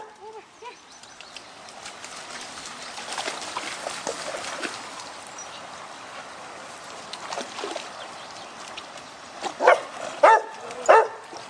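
Shallow stream water running and splashing as dogs wade through it, then a dog barks three times in quick succession near the end.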